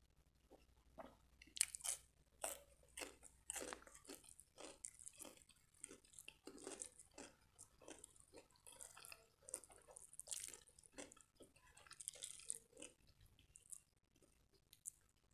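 Close-miked crunching and chewing of a raw cucumber slice: a quick string of crisp crunches, the loudest about a second and a half in, thinning out near the end.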